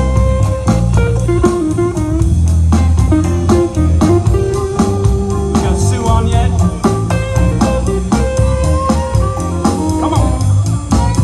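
Live band playing a blues-style number: electric and acoustic guitars over bass guitar and drum kit, with sustained bending lead notes.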